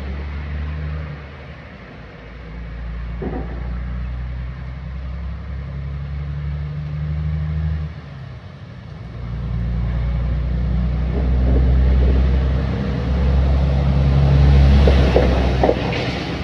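An engine running with a low, steady hum, easing off twice and then building up louder for several seconds near the end.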